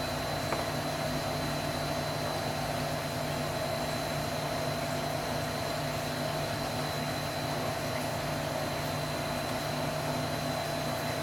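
Steady machine hum and hiss, with a thin high whine over a low drone and no change in level.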